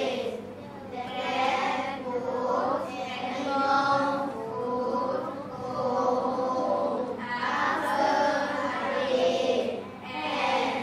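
A class of children reading a story aloud in unison, a slow sing-song group chant broken into phrases with short pauses between them.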